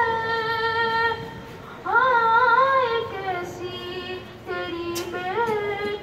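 A solo voice chanting a marsiya, a mourning elegy, unaccompanied, in long held notes that bend slowly up and down. The phrase breaks off about a second in and the next one rises in just before two seconds.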